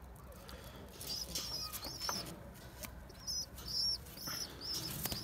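A bird chirping, a run of short high chirps about two a second, with faint rustling and soft knocks from pigeons being handled in a wire cage.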